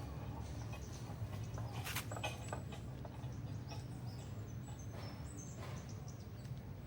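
Small birds chirping in short, high twitters, with scattered sharp clicks and knocks from handling the work, over a low steady hum.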